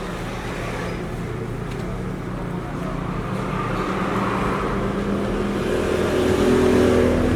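Steady mechanical hum of a running motor, growing louder about six seconds in.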